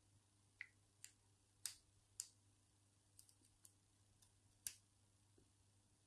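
Faint, irregular metallic clicks of a thin lock pick working the pins inside a Zeiss Ikon padlock's brass cylinder under a tension tool, about ten clicks with a quick cluster midway.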